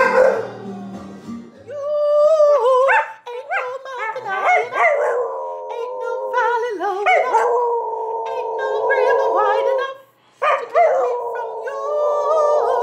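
A tan dog howling along with a woman singing, in long drawn-out, wavering howls. The howling breaks off briefly about ten seconds in, then starts again.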